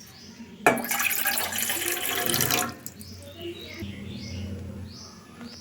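Two cups of water poured into a saucepan: a steady splashing pour that starts about half a second in and stops after about two seconds.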